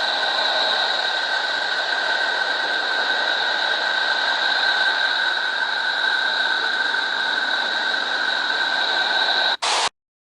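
Space 'sound' of Neptune, spacecraft data converted to audio: a steady hissing drone with two held tones, one lower and one higher, that cuts off suddenly after a brief high burst near the end.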